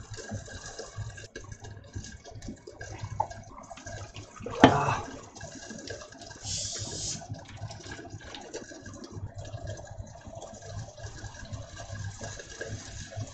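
Food sizzling and steaming under the studded lid of a cast iron skillet, with a sharp knock about four and a half seconds in and a short hiss soon after.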